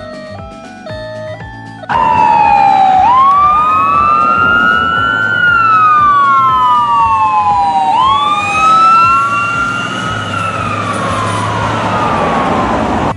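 Emergency-vehicle siren wailing, starting suddenly about two seconds in: a quick rise and then a slow fall in pitch, twice, with a second tone following just behind the first, cutting off abruptly at the end.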